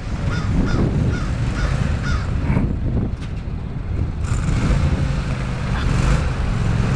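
Engine of a tracked MAX ATV running under load as its rubber tracks churn up through deep snow. A run of short, high squawks, about two a second, sounds over it in the first two seconds.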